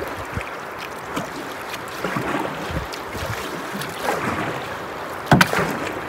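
Solo canoe being paddled in a fast, swollen river current: paddle strokes dipping and splashing at an uneven pace over a steady rush of water. A louder sudden hit about five seconds in.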